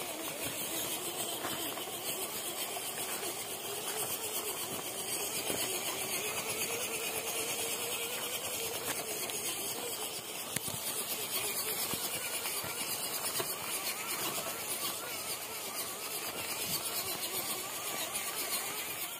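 Small RC crawler's electric motor and gearbox whining steadily as it drives, the pitch rising and falling with the throttle.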